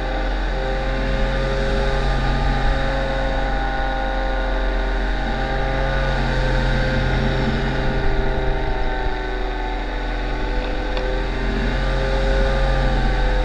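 Paramotor engine and propeller running steadily in flight, a continuous buzzing drone whose pitch rises and falls a little, with a low rumble underneath.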